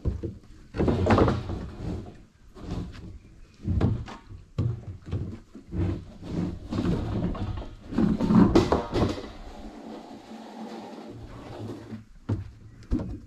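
Large hollow plastic lick-roller ball being wrestled up off its axle and out of its tub: a run of irregular knocks, thumps and scraping, loudest about a second in and again around eight seconds in, with a sharp knock or two near the end.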